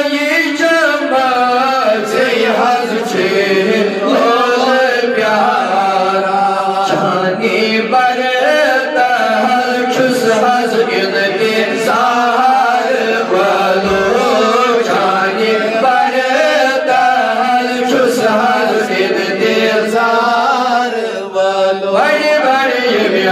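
A man's voice reciting a Kashmiri naat, an unaccompanied Islamic devotional song, in a continuous chanting melody with long, wavering held notes.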